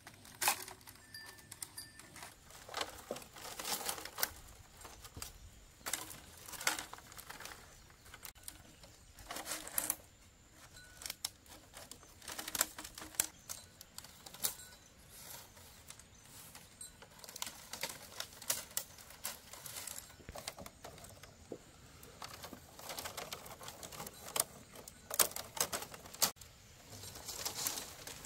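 Irregular sharp clicks and light knocks, coming in clusters every second or two.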